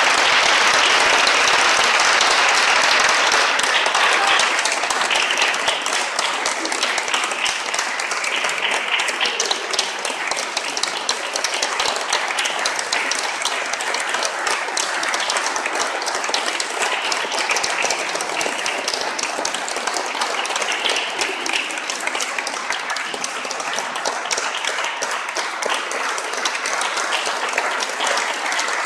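Audience applauding, loudest for the first few seconds and then holding steady.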